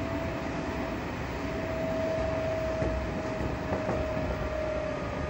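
Odakyu 8000 series field-chopper-controlled electric train running, heard inside the passenger car: steady running noise with a clear whine that drifts slightly lower.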